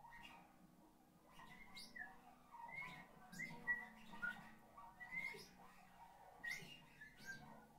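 Harp played softly in sparse, separate plucked notes, some of them sliding briefly in pitch.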